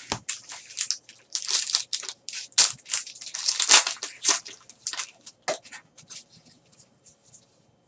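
Irregular crinkling and rustling of trading card packs and cards being handled: wrapper and card stock scraping, crumpling and shuffling in quick short strokes that thin out near the end.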